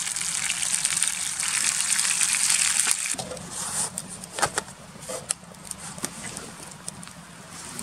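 Tomato sauce sizzling in a hot pan over a wood fire, a loud steady hiss for about three seconds. Then it cuts off abruptly to a quieter hiss with scattered sharp crackles from the fire.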